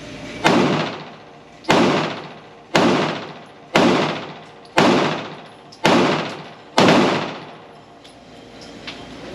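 PSA Dagger Compact 9mm pistol firing seven shots at a steady pace of about one a second, each shot followed by a short ringing echo.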